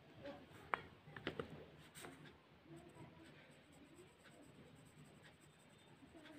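Wooden graphite pencil faintly scratching on paper as short strokes are drawn, with a few sharper ticks in the first two seconds.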